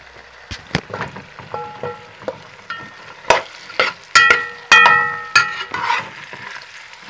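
A metal spoon clanking and scraping against a kazan while stirring diced carrots and onions, each knock leaving a short metallic ring. Under the knocks the vegetables sizzle faintly as they fry in oil.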